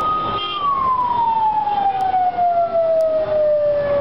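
A siren wail holds at its peak for about half a second, then slides slowly and steadily down in pitch, over a bed of road traffic noise.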